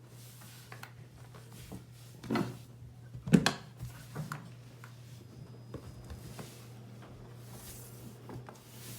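Dishwasher's lower access panel being handled and fitted back on, with light clicks and two sharp knocks, the louder about three and a half seconds in. A steady low hum runs underneath.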